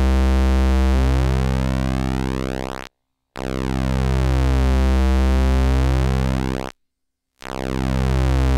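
Animodule Lil Monster analog VCO putting out a low, steady-pitched pulse wave while its pulse width is swept by hand, so the tone's colour keeps shifting. The sound cuts out twice, about three seconds in and again near seven seconds, as the width is swept all the way through.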